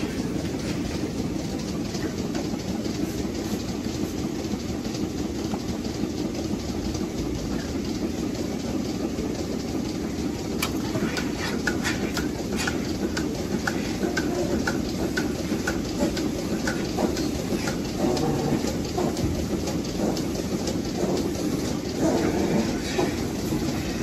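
Milking parlour machinery running: a steady noisy hum and hiss from the vacuum milking equipment, with many small clicks and clanks of the clusters and fittings. Near the middle comes a run of regular ticks, about two a second.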